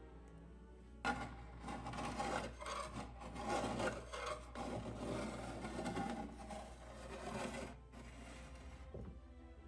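Irregular hand strokes scraping and rubbing across the painted wooden dresser drawer, working off the wood-grain paint, starting about a second in and stopping near the end.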